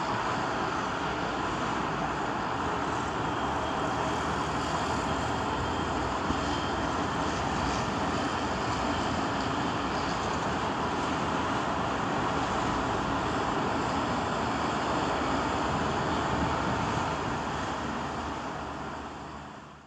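Street ambience: steady traffic noise from passing road vehicles, fading out near the end.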